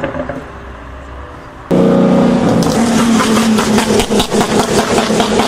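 After a quieter stretch, a turbocharged car engine cuts in loud about a second and a half in and is held at steady revs on a two-step launch limiter, with a rapid run of exhaust pops and crackles.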